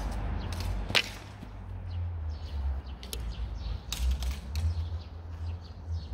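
Fencing swords clashing in sparring: one sharp clack of blades meeting about a second in, then scattered lighter clicks of blade contact.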